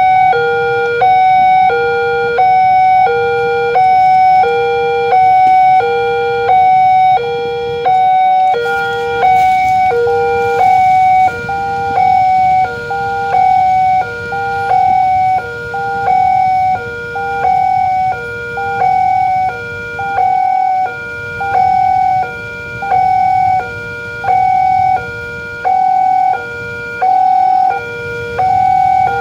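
Railway level-crossing warning alarm sounding its electronic two-tone signal, a lower and a higher tone switching back and forth, each held about half a second. It warns that a train is approaching while the barrier is down.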